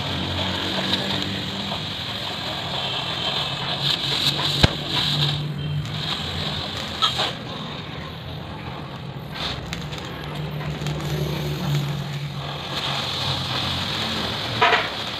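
Oxy-fuel cutting torch hissing steadily as it cuts through steel plate, crackling as the molten metal blows out of the cut, with a few sharp clicks. A low steady hum runs underneath.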